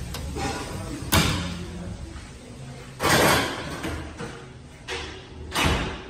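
Restroom door pushed open and swinging shut: a sharp knock about a second in, then louder thuds around three seconds and again near the end, over a steady low hum.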